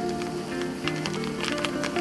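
Instrumental background music: held melodic notes changing pitch every fraction of a second over light clicking percussion.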